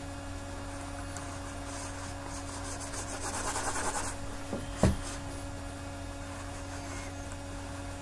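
Steady low electrical hum, with a faint rubbing for about two seconds in the middle and one sharp click about five seconds in: a computer mouse being slid over the desk and clicked.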